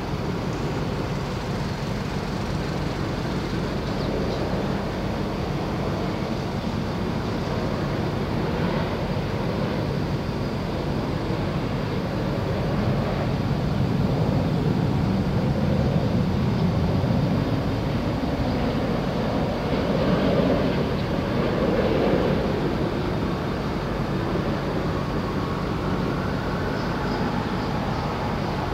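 Steady engine and traffic noise from cars and motorcycles passing close by. It grows louder twice around the middle.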